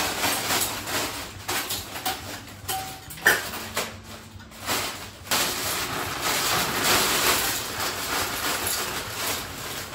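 A plastic bag of frozen cabbage crinkling as it is shaken out into a metal steamer basket inside a pressure cooker pot. Scattered rustles and knocks come first, then a longer continuous rustle from about five seconds in.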